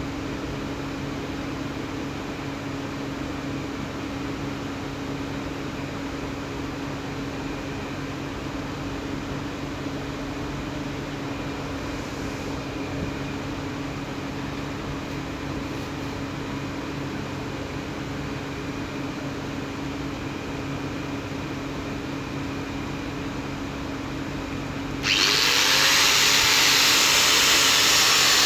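Stanley angle grinder with a cutting disc running free, a steady motor whine and hum. Near the end a much louder, harsh grinding noise starts abruptly as the disc cuts into a steel bar, and the motor pitch dips as it takes the load.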